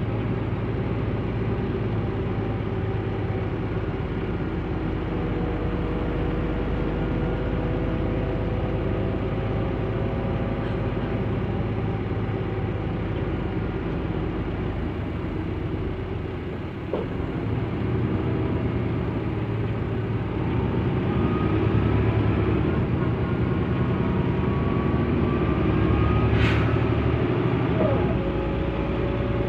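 Mercedes-Benz O 405 N2 city bus running under way, its engine note rising and falling in pitch through the gears and getting louder in the second half. A short air hiss comes near the end.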